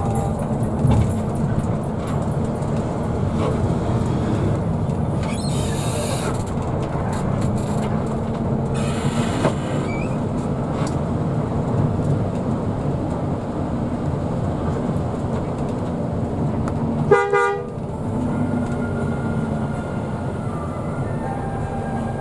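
Steady rumble of a moving vehicle, with a short horn blast about seventeen seconds in.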